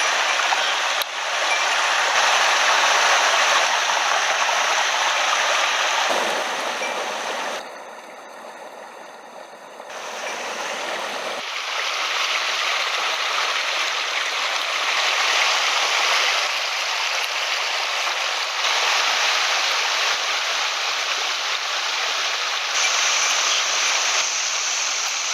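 Small mountain headwater stream running steadily close by. The water sound drops away for about two seconds around eight seconds in, then returns.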